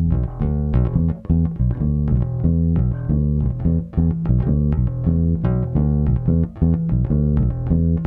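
Fender Precision Bass recorded direct through an audio interface, playing a busy run of plucked notes with a light touch of compression.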